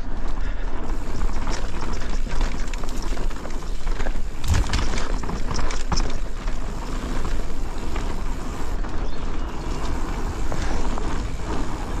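Specialized Kenevo electric mountain bike rolling fast down a dirt singletrack: steady tyre rumble over the ground and a constant rattle and clatter from the bike, with a hard knock about four and a half seconds in.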